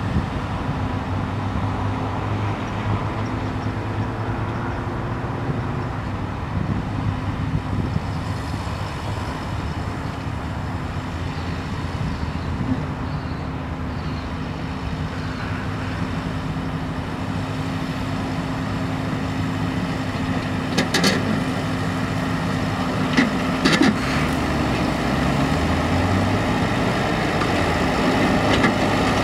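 Reform Mounty 100V tractor engine running steadily under load while its Trimax Stealth 340 rotary mowing deck cuts grass, growing louder in the last third as it comes closer. A few short sharp clicks sound about two-thirds and three-quarters of the way through.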